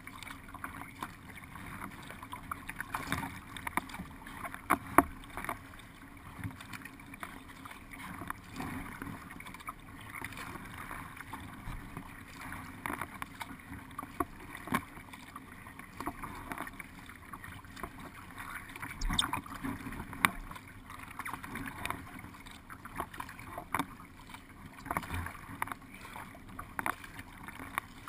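Water rushing and lapping along a narrow racing boat's hull as it is paddled, with irregular splashes and knocks from the strokes.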